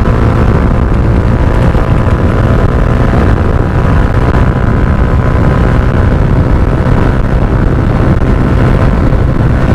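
Yamaha R15 V2's 150 cc single-cylinder four-stroke, four-valve engine running steadily under load at highway speed, with wind rushing over the microphone.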